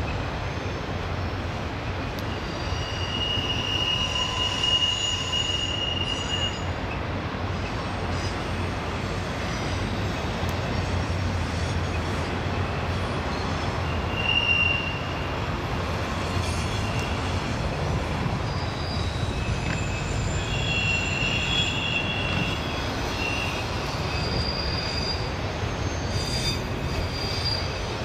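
Freight train of autorack cars rolling past: a steady rumble of wheels on rail, with high-pitched wheel squeal coming and going, a long squeal a few seconds in, a brief one midway, and more toward the end.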